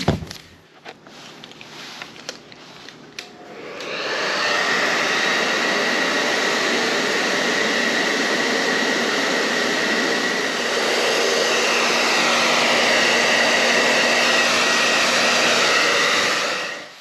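Handheld hair dryer running steadily with a faint whine, warming the 3M adhesive tape under a spoiler. It starts about three and a half seconds in, after a few light handling clicks, and cuts off just before the end.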